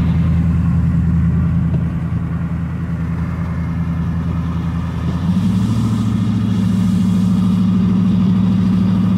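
Pickup truck engine droning steadily inside the cab under the load of towing a van on a trailer. About five seconds in, the engine note steps up in pitch and holds at the higher speed.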